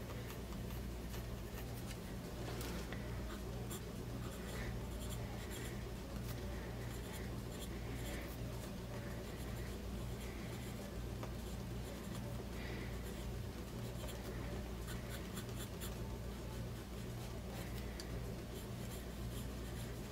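Fountain pens with medium steel nibs scratching across dot-grid notebook paper in short strokes and letters: a Pilot Metropolitan Retro Pop, then a TWSBI Eco. A steady low hum runs underneath.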